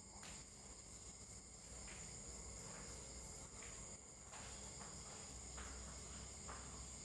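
Near silence: the faint background noise of the recording, a steady high-pitched hiss over a low hum, with a few faint soft ticks.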